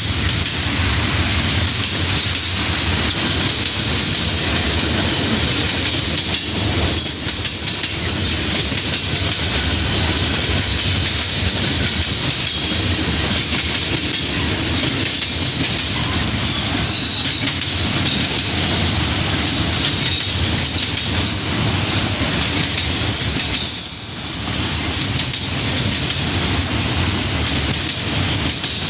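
Freight train cars rolling past: a steady noise of steel wheels on rail, with a few faint, brief high-pitched wheel squeals.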